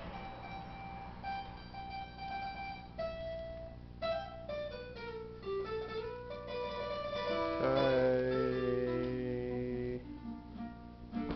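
Music with plucked, guitar-like notes and held tones, loudest about eight seconds in.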